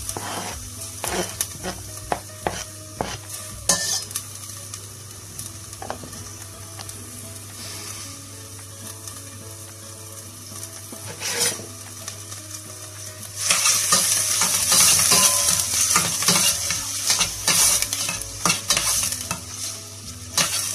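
Chopped onions frying in hot oil in a stainless steel pot, a steady sizzle broken by sharp clicks of a spoon against the pot. About two-thirds of the way through the sizzle becomes much louder as the onions are stirred.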